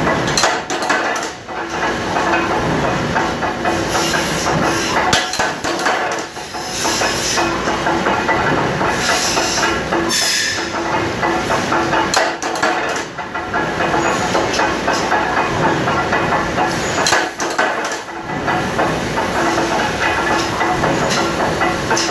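Factory machinery running loudly: a steady hissing clatter with irregular knocks as metal stock is worked.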